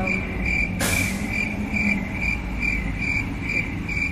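A steady run of short, high, evenly spaced beeps, about three a second, with a brief hiss about a second in, over a low rumble of background traffic.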